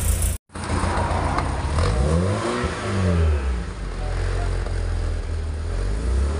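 Exhaust of a BMW E46 through a newly fitted aftermarket silent muffler, with the stock manifold and catalytic converter kept. The engine is blipped once, rising and falling back about two to three seconds in. It then runs steadily and starts to rise again at the end.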